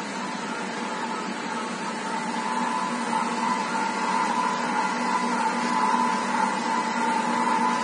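Automatic circumferential arc welding of a small tank seam: a steady arc hiss with a constant hum and no crackle, getting a little louder about halfway through.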